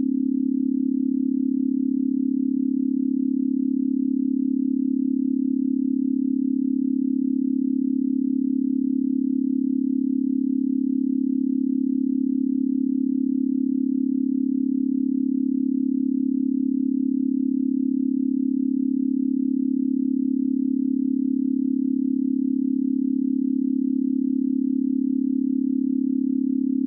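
A single steady electronic tone at one low pitch, like a held sine wave, with no change in pitch or loudness. It is offered as a 'space sound' of the dwarf planet Orcus.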